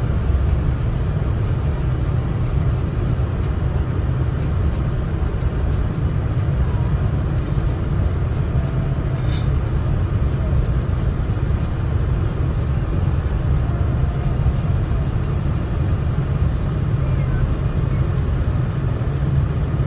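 Steady vehicle noise heard from inside a moving car: a continuous low rumble with road hiss above it, and one brief click about halfway.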